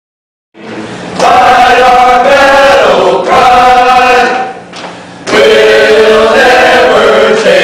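Music: a choir singing in long held notes, starting about half a second in after silence, with a short quieter gap near the middle.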